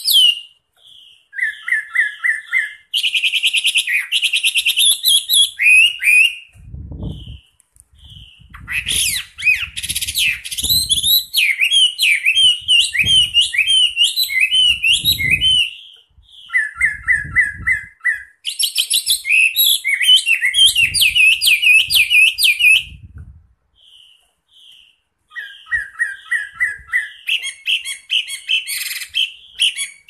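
A Chinese hwamei (melodious laughingthrush) singing loudly in long, varied phrases of repeated whistled notes, fast trills and rising slurs, broken by a few short pauses.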